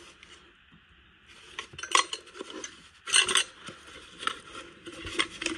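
Loose metal hand tools clinking and rattling against each other in a tool chest drawer as they are handled, with a small cardboard box being handled over them. The clinks are scattered and start after about a second of quiet, loudest about two seconds in and again just after three.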